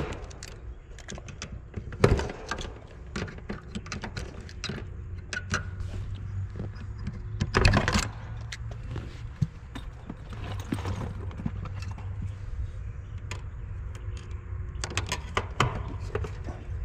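Hand tools and wire terminals being handled in an air-conditioner condenser's electrical compartment: scattered small metal clicks and clatter, with a sharp louder knock about two seconds in and a brief louder clatter near the middle, over a low steady hum.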